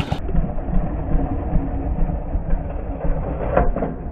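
Old petrol lawnmower engine running, with a rapid, uneven low beat.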